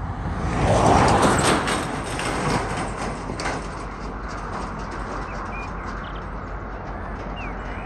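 A vehicle passes close by, loudest about a second in, with a few sharp knocks over the next couple of seconds, then settles into a steady rumble.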